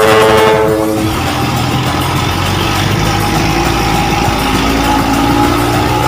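Ship-style air horn on a Hino 320Ti truck sounding a full, many-toned blast that cuts off about a second in, followed by steady truck engine and road noise.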